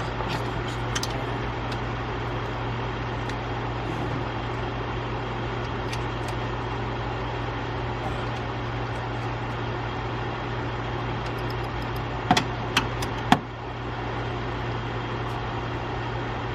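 Steady low mechanical hum, like a motor or engine running, with three sharp clicks about three-quarters of the way through.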